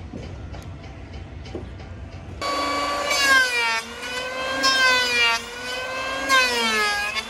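Light knocks of timber being handled, then about two and a half seconds in a handheld electric power tool starts on the wooden bulwark. Its whine sags in pitch and recovers several times as it bites into the wood under load.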